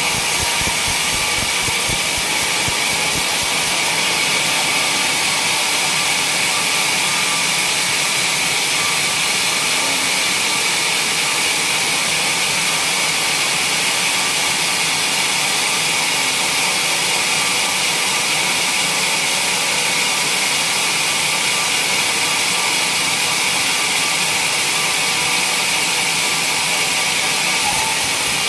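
Sawmill running: a loud, steady machine noise, strongest in the high pitches, with a slight change near the end.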